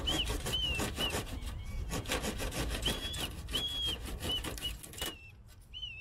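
A child blowing short, rising-and-falling notes on a small toy whistle, a couple of them held longer, as a little tune. Under it run rasping strokes of a pocket-knife saw cutting firewood, which stop about five seconds in.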